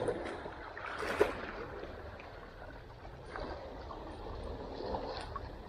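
Sea water washing and trickling among shoreline rocks, a steady low wash, with a few small clicks as a 10-gram metal jig is handled and clipped onto the fishing line's snap, the sharpest about a second in.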